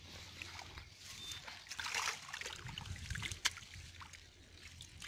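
Water trickling, sloshing and splashing in a triangular bamboo-framed push net as a hand searches through the shallow, duckweed-choked water inside it, with scattered small splashes and one sharp click about three and a half seconds in.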